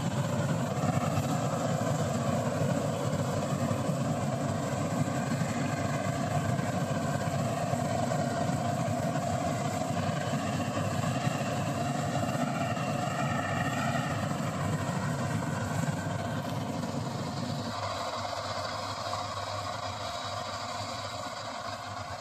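Preet 849 combine harvester running, a steady mechanical drone from its engine and machinery. About three-quarters of the way through, the deep part of the sound drops away and the sound grows gradually quieter.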